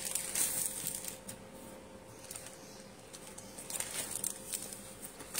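Clear plastic packaging on folded suit fabrics crinkling and rustling in short bursts as the packs are picked up and shifted, busiest near the start and again about four seconds in.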